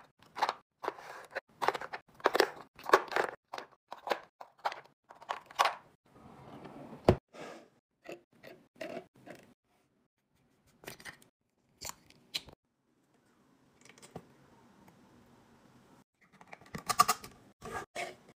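Plastic coffee pods clicking and clacking as they are set down in a wooden drawer organizer, with a sharp knock about seven seconds in. Later come scattered clicks of a plastic bottle cap and a glass bottle handled on a wooden tabletop, with a quick run of clicks near the end.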